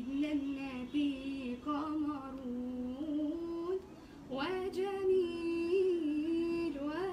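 A young woman's solo voice singing an unaccompanied Islamic religious chant (ibtihal), drawing out long ornamented notes that waver and glide with no clear words. A brief breath near the middle, then a rising phrase.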